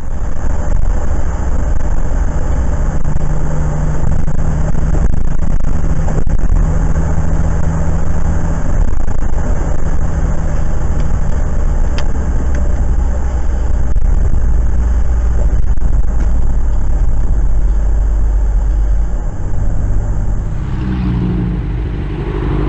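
A car driving on a wet highway, heard from inside the cabin: steady tyre and road noise over a low engine hum. About 21 seconds in it gives way to a motorcycle's engine.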